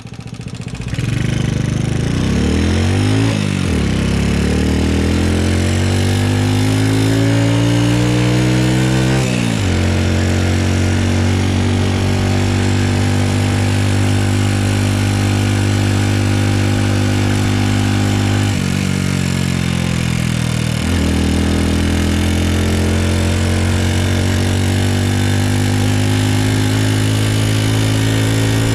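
Honda Super Cub's single-cylinder four-stroke engine on the move. Revs climb for several seconds and drop sharply at a gear change. It runs steadily, then dips and climbs again near the middle. The owner says this engine is making an abnormal noise.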